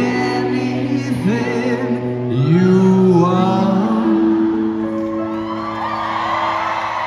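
Live rock band ending a song: a sung vocal line over sustained chords, then one long held note from about four seconds in as the song rings out, with the crowd starting to whoop and cheer near the end.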